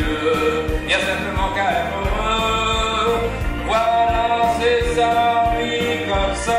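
Arranger keyboard playing an upbeat twist tune: a lead melody of held notes over a backing of drums and bass with a steady beat.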